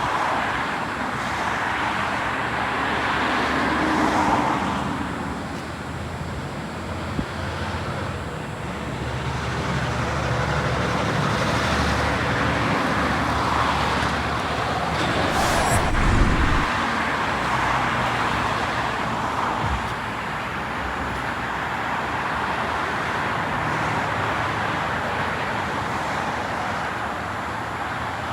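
Road traffic passing in waves, with a steady tyre hiss that swells and fades, and a single low thump about sixteen seconds in.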